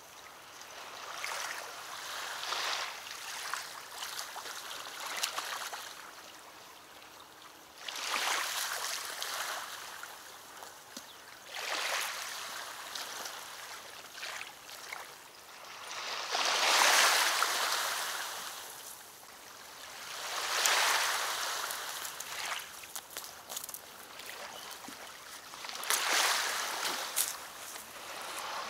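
Small waves lapping at the river bank, the water sound swelling and fading every few seconds. A few faint clicks come near the end.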